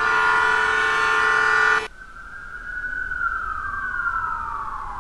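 Ambulance siren sound effect played by a traffic-signal simulation program on an emergency call. First comes a loud steady horn-like blast of many pitches that cuts off abruptly about two seconds in, then a quieter single siren wail that slowly falls in pitch.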